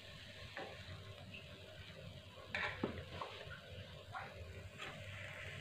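Metal forks scraping and clicking against a non-stick (Teflon) cake mould pan as cooked cakes are prised out, a few light clicks and scrapes with the loudest about halfway through.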